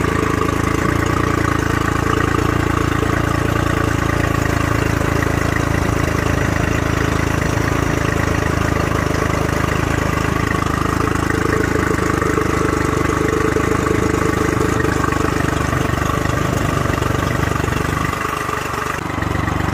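Honda 40 hp three-carburettor outboard engine idling steadily with the cowling off, on flush muffs, soon after a cold start with its electric choke (by-starter) still warming it up. The low end dips briefly near the end.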